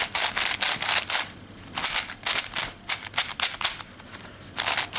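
Plastic MF5S 5x5 speed cube being turned fast: quick runs of clicking, slightly scratchy layer turns, with two short pauses, about a second and a half in and near the end.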